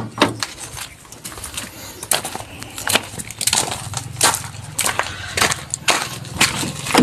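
Footsteps crunching on gravel and stones, a string of irregular crunches and knocks over a faint low steady hum.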